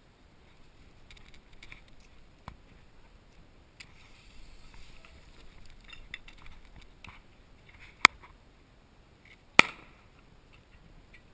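Airsoft gun shots: sharp single snaps, a faint one about two and a half seconds in and two loud ones about a second and a half apart near the end, over light rustling of movement through brush.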